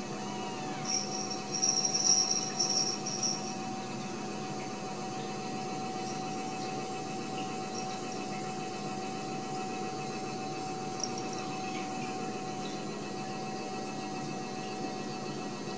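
Steady background hum and hiss with a constant mid-pitched tone. About a second in comes a brief, high, fluttering chirp that lasts about two seconds.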